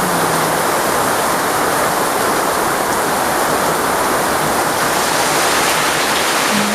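Heavy monsoon rain pouring down, a dense, steady hiss. A low hum fades out in the first half second and comes back near the end.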